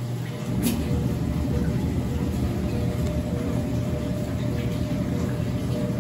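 Laundry tumble dryer running, its drum turning with pillowcases tumbling inside, a steady mechanical hum and rumble. A click comes about half a second in, and after it the low rumble is louder.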